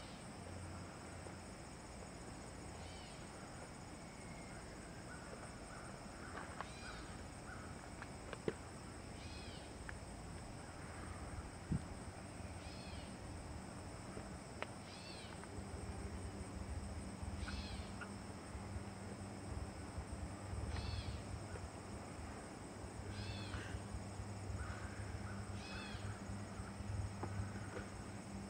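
A faint, short animal call repeated about every two to three seconds, over a steady high insect drone.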